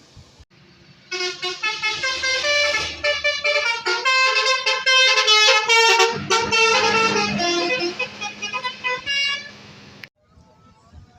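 Basuri musical bus horn playing a quick melody of short, changing notes for about eight seconds, starting about a second in. It cuts off near the end, leaving only a faint snatch of horn tune.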